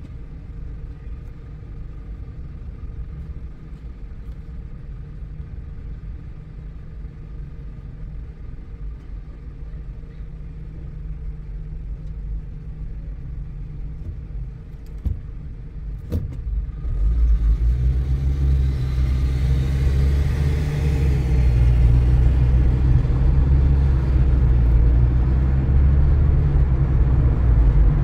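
Car driving on a wet road, heard from inside: a steady low road rumble that grows much louder about seventeen seconds in, with a hiss of tyres over it.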